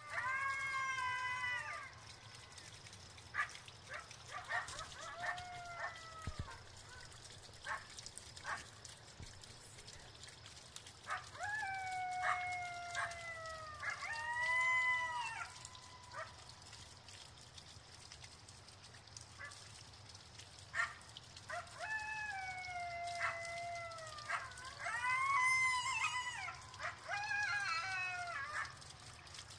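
A pack of coyotes howling and yipping: several wavering howls overlap in four bouts with pauses between, mixed with short sharp yips.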